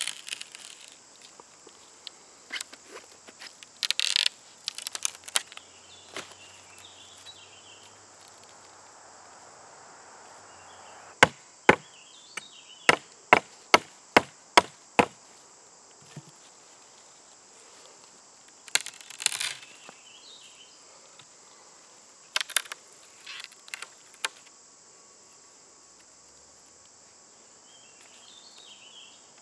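A hatchet chopping through a thumb-thick green sapling: a quick run of about eight sharp strikes, roughly two a second, with a few scattered knocks before and after. A steady high insect drone runs underneath.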